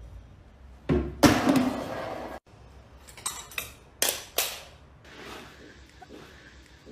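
Small household objects clattering and knocking as a cat pushes them off a cabinet and counter onto the floor: a loud clatter about a second in, then several sharp knocks a couple of seconds later.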